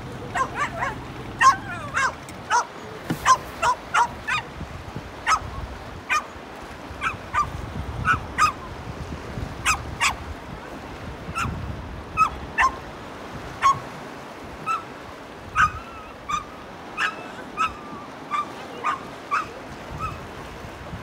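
A dog barking and yelping over and over in short, sharp cries. They come close together at first, then settle to about one every second. The dog is frightened and distressed, freaking out and crying.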